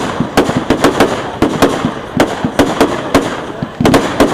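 Display fireworks going off in rapid, irregular succession: a dense string of sharp bangs and cracks, about three a second.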